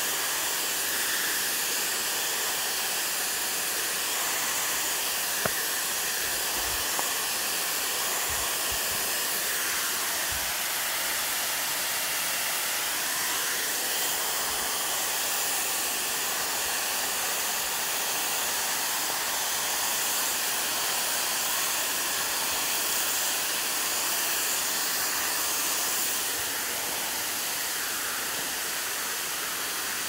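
Steady rushing of a waterfall, a constant hiss of falling water. Two short clicks sound about a fifth of the way in.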